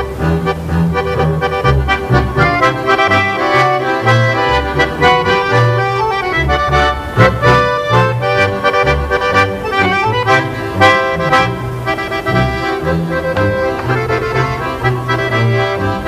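Swiss Ländler music from a Schwyzerörgeli trio: two Swiss diatonic button accordions playing the tune and chords over a double bass walking a steady bass line.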